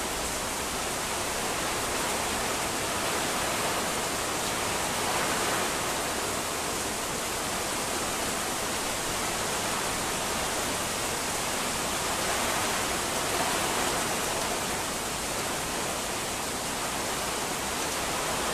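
Heavy rain falling in strong wind: a steady, dense rush of noise that swells slightly a couple of times.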